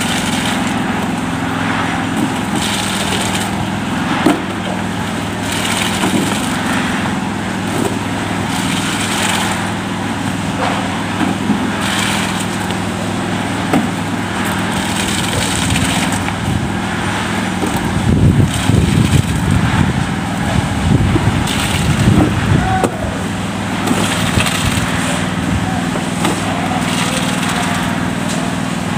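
Concrete mixer's small engine running steadily during a concrete pour, with repeated short scraping noises. A louder, rougher stretch comes about two-thirds of the way through.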